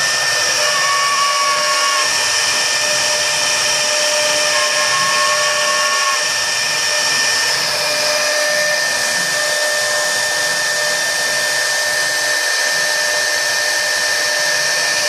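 CNC router spindle running at high speed as its bit engraves letters into a wooden board: a steady, loud whine over a hiss of cutting noise. A second tone joins briefly twice, about a second in and again around five seconds.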